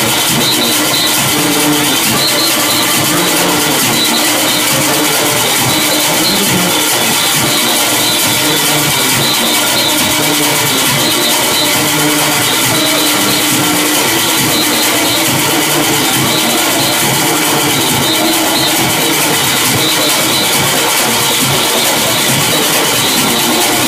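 Junkanoo parade band playing: goatskin drums, cowbells, horns and whistles in a loud, dense, unbroken wall of sound.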